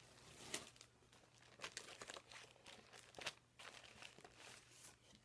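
Plastic bags crinkling faintly in irregular bursts as hands rummage through a bag and pull out a clear zip-top plastic bag.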